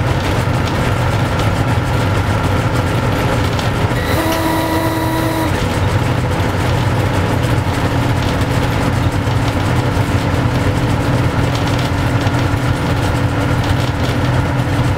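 ER2 electric train running at speed, heard from the cab as a steady rumble of wheels on rail. About four seconds in, a horn sounds one steady blast lasting about a second and a half.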